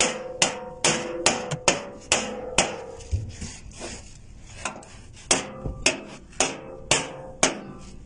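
Hammer blows on a metal diamond-plate floor, about two to three a second at first, each with a short metallic ring. They then come more spaced and uneven and stop near the end.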